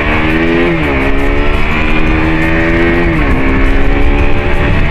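KTM RC sportbike's single-cylinder engine pulling up through the gears: its pitch climbs, drops at an upshift about a second in, climbs again and drops at a second upshift about three seconds in. Wind rumbles on the microphone throughout.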